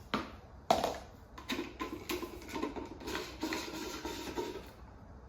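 Handling clatter of support-column pieces being fitted together: a sharp knock about 0.7 s in, the loudest sound, then a run of small clicks and knocks.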